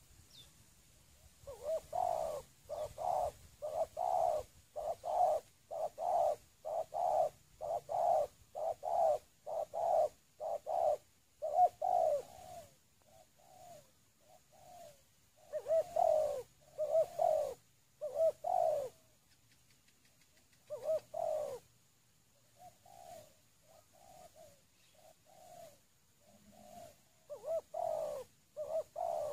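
Spotted doves cooing. An even run of coo notes lasts for about ten seconds, then comes in shorter louder groups with fainter coos in between.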